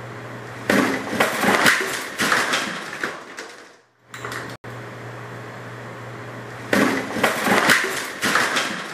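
A loaded shelf collapsing: a sudden crash of bottles and objects hitting the floor, with glass breaking and clattering that dies away over about three seconds. The crash comes twice, about six seconds apart, over a steady low hum.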